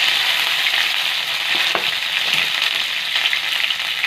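Curry leaves frying in hot coconut oil: a steady sizzling hiss with fine crackles.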